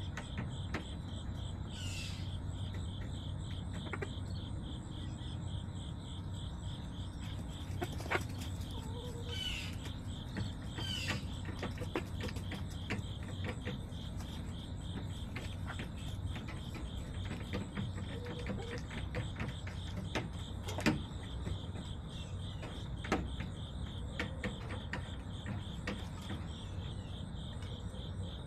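Crickets chirping in a steady, fast-pulsing high trill, with scattered sharp clicks and taps and a few short chirping calls.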